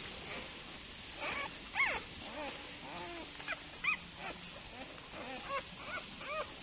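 Newborn puppies, only a few days old, whimpering in a litter: a run of short, high squeaks that rise and fall in pitch.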